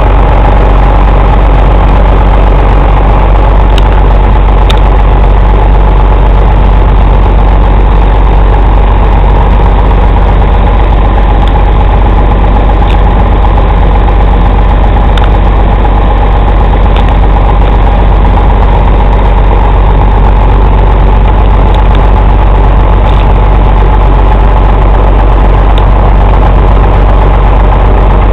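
Truck diesel engine idling steadily: a constant low hum with a steady higher tone over it, and a few faint ticks.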